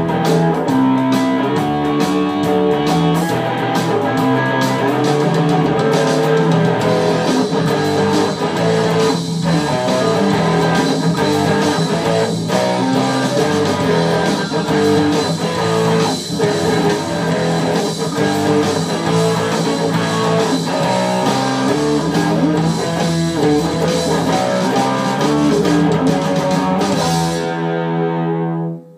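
Electric guitar played through an amplifier in a rock style, fast busy lines with a few short breaks. Near the end it settles on a held chord that cuts off suddenly as the piece ends.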